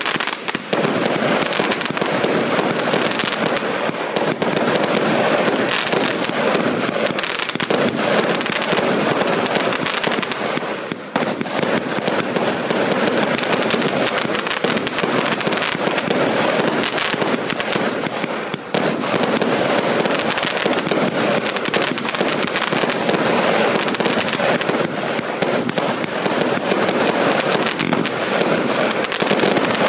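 A 100-shot, 20 mm Triplex TXB745 Hero firework cake firing shot after shot: a rapid, nearly unbroken stream of loud bangs with crackle. There are short lulls about eleven and nineteen seconds in.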